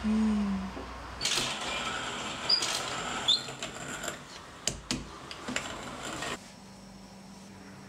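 Wooden-box Kalita hand coffee mill being cranked, crushing coffee beans with a gritty, rattling crunch and scattered sharp clicks. It stops about six seconds in. A brief low falling tone sounds at the very start.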